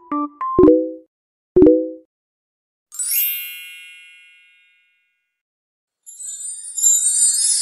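A few short keyboard-like notes and two low chord hits about a second apart, then a single bright bell-like ding that rings out and fades over about a second and a half. After a short silence, a high jingling like sleigh bells starts near the end.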